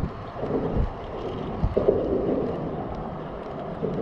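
Wind rumbling on the microphone, steady and low, with a sharp knock about one and a half seconds in.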